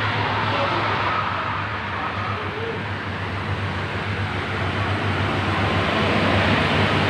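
Toll-road traffic noise with an intercity coach bus approaching and passing close by, its engine hum and tyre noise growing louder over the last few seconds.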